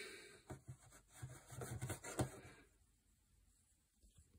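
Faint rubbing and scuffing of a handheld phone being held and moved, with several soft knocks, for about the first two and a half seconds, then near silence.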